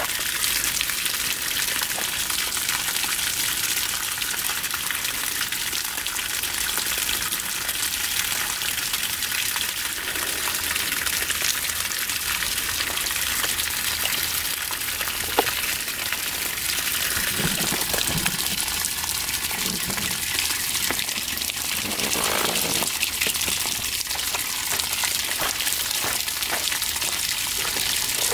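Water running steadily, a constant rushing hiss, with a single light click about halfway through.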